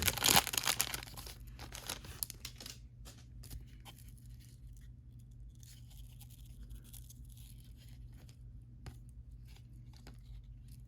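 A baseball card pack's wrapper crinkling and tearing for about the first second, then faint rustling and light ticks of the cards being handled, over a steady low hum.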